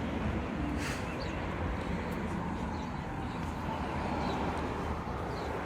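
Steady outdoor background rumble, with a few faint short high chirps and a single click about a second in.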